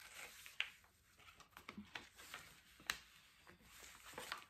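Quiet rustling and crinkling of a protective plastic film being peeled back off a diamond painting canvas's adhesive glue layer, with a few sharp crackles as it lifts away.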